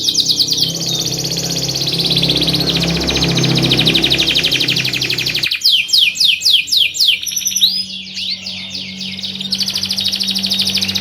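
Domestic canary singing a long, unbroken song of fast rolling trills and quick downward-sweeping whistles. The song changes abruptly about halfway through, where the recording is cut.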